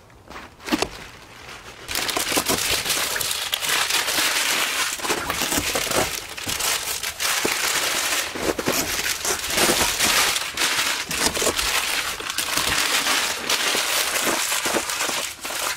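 Close, continuous crinkling and crumpling of packaging being handled, starting about two seconds in, with a single sharp knock shortly before it begins.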